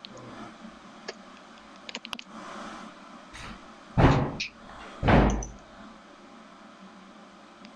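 Two loud, dull thumps about a second apart, after a few faint clicks.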